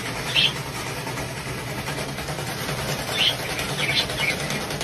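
A few short high chirps from a white-bellied caique: one about half a second in, then several near the end. Under them runs a steady low rumbling hum.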